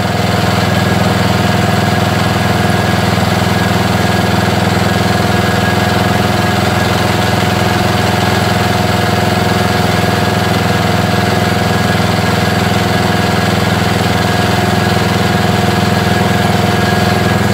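Briggs & Stratton rear-mounted engine of a Jacobsen Homelite riding mower running steadily, shortly after being pull-started.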